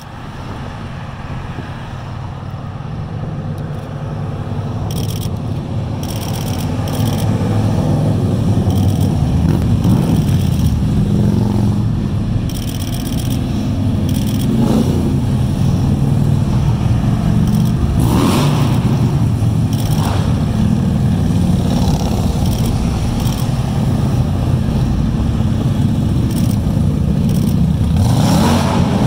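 A long procession of touring and cruiser motorcycles passing along a highway, many engines running together in a steady low drone. It grows louder over the first eight seconds or so as the bikes approach, then holds steady, with a few louder passes.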